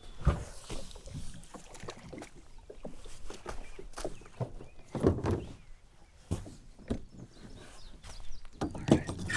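Plastic fishing kayak being pulled up a mud and grass riverbank: irregular knocks, thumps and scrapes of the hull, mixed with footsteps on the bank.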